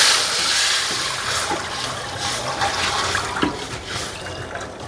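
Water poured from a bowl into a hot wok where garlic has just been fried in oil: loud hissing at first, fading to a softer splashing pour as the pan cools.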